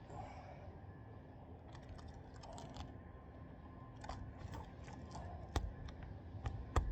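Scattered small clicks and rustles as a brittle asphalt shingle is handled, then two sharp hammer strikes on a roofing nail near the end.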